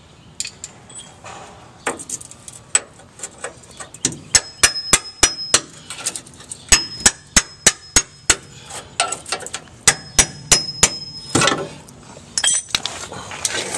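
Hammer blows on steel, knocking at the riveted rear leaf-spring shackle bracket on the truck's frame: three quick runs of five or six sharp, ringing strikes, with lighter knocks between.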